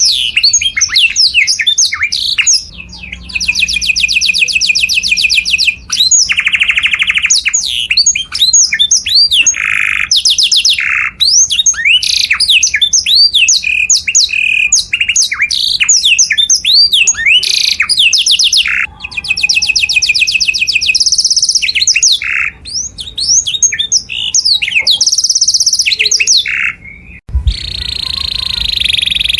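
Canary singing loudly: a long song of fast, rattling trills and swooping chirps, phrase after phrase with short breaks. A brief low thump comes near the end.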